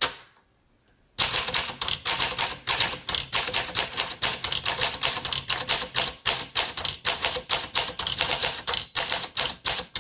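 Fast typing on a 1936 Smith Corona Standard flat-top manual typewriter: one clack at the start, then after about a second a quick, unbroken run of keystrokes, the type bars striking the platen, which stops right at the end.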